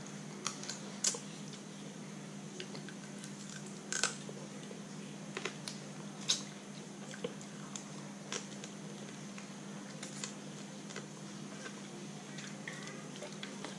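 A person eating crab meat with his fingers: wet mouth clicks and lip smacks as he chews and sucks his fingers, scattered sharp ticks every second or two.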